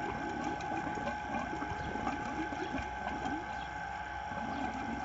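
12V DC solar water pump running with a steady high whine, over gurgling, splashing water.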